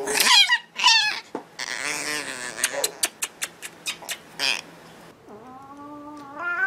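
A Chihuahua puppy squealing and whining while being kissed, with a run of quick kissing smacks. Then, about five seconds in, a tabby cat gives one long, complaining meow that rises sharply at the end.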